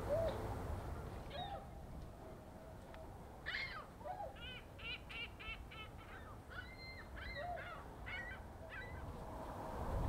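Swans and snow geese calling. A few soft, low hoots come and go, and from about a second and a half in there is a run of higher, nasal honking calls in quick succession, over a low steady rumble of wind and water.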